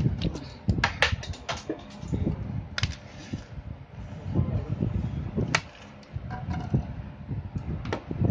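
Scattered clicks and knocks as the parts of a laser printer's fuser assembly and hand tools are picked up and set down on a worktable, over a steady low rumble.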